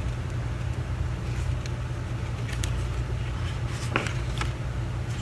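Soft clicks and rustles of an album's paper and card packaging being handled and opened, the sharpest tick about four seconds in, over a steady low hum.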